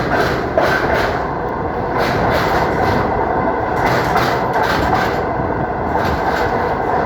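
Passenger train running along the track: a steady rumble of wheels on rails, with a clack over the rail joints every second or so.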